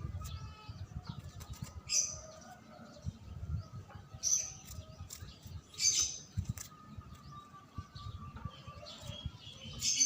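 A songbird giving short, high chirping calls, four louder ones spaced a couple of seconds apart with fainter notes between, over a low rumble of background noise.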